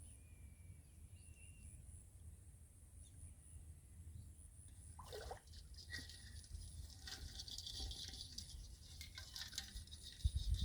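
Water splashing and pattering in irregular bursts, starting about halfway through and growing louder toward the end, with faint bird chirps in the first couple of seconds.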